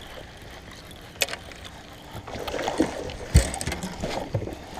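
Knocks and thumps on a bass boat's deck and hull, with rustling movement, while a hooked bass is played to the boat. There is a sharp click about a second in, activity picks up halfway through, and the heaviest thump comes a little after that.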